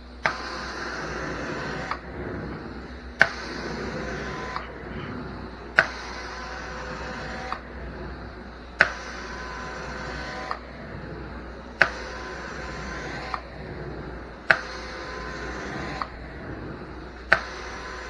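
Carpet extraction wand making hot water extraction strokes over the steady hum of the extractor's vacuum. About every three seconds there is a sharp click, then roughly two seconds of hissing spray and suction with a steady whistle, which cuts off before the next stroke.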